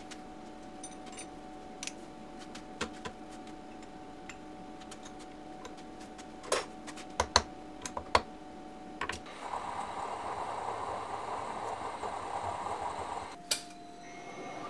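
Milling machine spindle running with a steady hum while a small end mill cuts metal held in the vise, with a few sharp clicks. About two-thirds of the way in, a rougher, noisier cutting sound takes over for several seconds, then stops with a sharp click.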